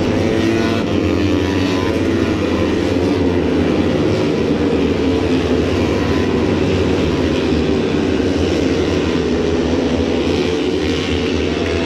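Moto3 racing motorcycles' single-cylinder four-stroke engines, the field riding round on the warm-up lap before lining up for the start, heard as a steady droning hum over spectator noise.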